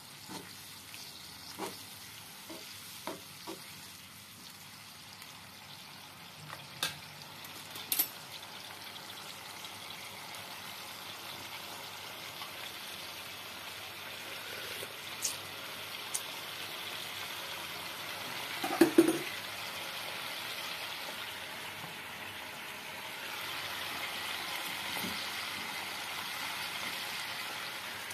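Dark black-pepper sauce sizzling and bubbling in a nonstick frying pan, a steady hiss that grows a little louder toward the end. Scattered light clicks, with one louder knock about two-thirds of the way through.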